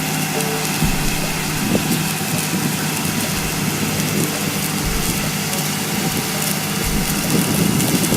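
An engine running steadily under a continuous hiss of water spraying from nozzles.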